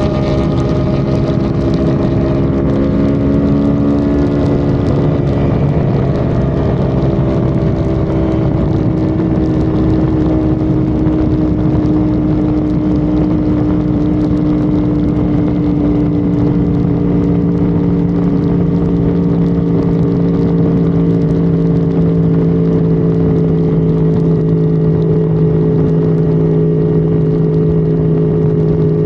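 Honda Civic FD's engine heard from inside the car at high highway speed, a steady drone over road and wind noise, its pitch slowly easing down as the throttle is held back.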